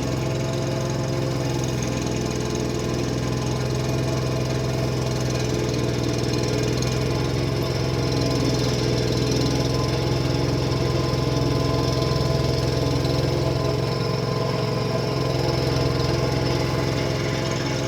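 Tractor engine running steadily at a constant pitch as the tractor works through deep snow drifts.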